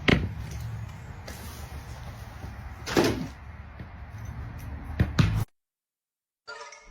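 A low steady rumble with three sharp knocks, one at the start, one about three seconds in and one about five seconds in, then a sudden cut to silence.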